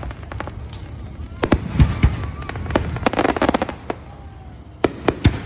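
Aerial fireworks bursting: a string of sharp bangs at uneven intervals, with a spell of dense crackling about three seconds in.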